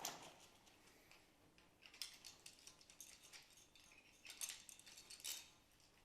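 Handcuffs being unlocked with a key and taken off: a few faint, scattered metallic clicks and jingles of the cuffs' ratchet and chain.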